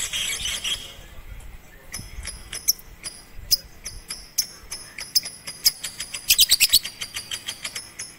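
Bird chirping: a series of short, shrill, high chirps that speed up into a rapid run about six seconds in. A brief noisy burst comes at the very start.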